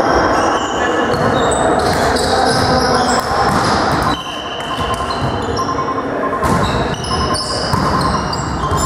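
Echoing sounds of volleyball play in a sports hall: many short, high squeaks of sneakers on the court floor, players' voices, and now and then the thud of the ball.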